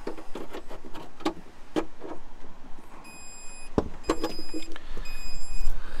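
Bluetti AC200P power station sounding its fault alarm: three high electronic beeps about a second apart, starting about three seconds in, raised because its DC input was set to car instead of PV when the solar array was plugged in. Before the beeps, clicks and knocks from the solar cable being plugged in.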